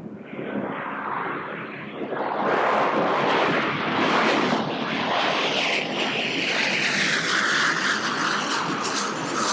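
Boeing 737-700 airliner with CFM56-7B turbofans passing close on its landing arrival. The jet noise swells loud over the first couple of seconds and holds, and a whine falls steadily in pitch over the last few seconds as it goes by.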